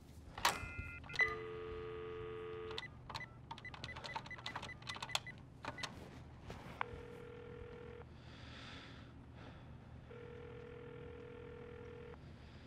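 Wall-mounted push-button telephone: the handset is lifted with a couple of clicks and a steady dial tone sounds, then a run of quick clicks as the number is keyed in. A ringing tone follows from the earpiece in pulses of about one to two seconds, a few seconds apart, twice.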